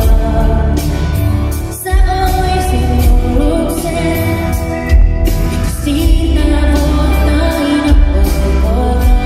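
Live pop song from a concert stage: a sung melody over a band with heavy, boomy bass, recorded on a phone from the audience.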